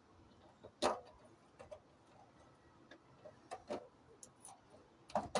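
Irregular clicks and knocks as a replacement car wiper motor is worked into place by hand, the loudest about a second in and near the end.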